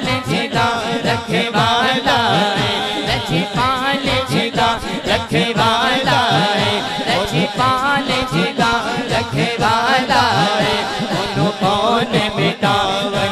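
A man singing a devotional kalam (naat) into a microphone, in long ornamented melodic phrases, over a fast beat of sharp knocks.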